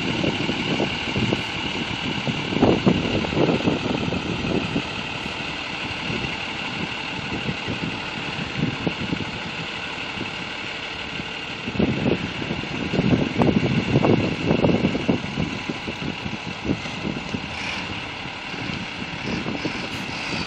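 Engine of a Dongfeng three-axle garbage compactor truck running steadily as the truck drives slowly across a yard, heard from a distance. Gusts of wind buffet the microphone a couple of seconds in and again about halfway through.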